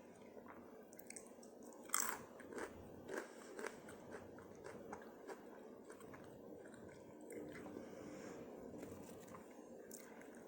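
A person eating close to the microphone: bites and crunching chews, the sharpest crunch about two seconds in, then smaller crunches at irregular intervals.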